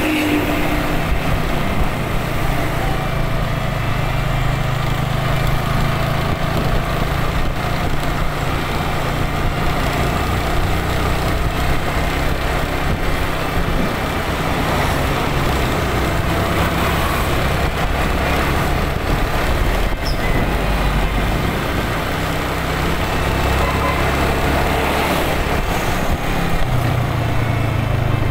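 Road noise heard from a moving motorcycle: its engine running steadily under wind and tyre noise, with a truck and a bus passing close by.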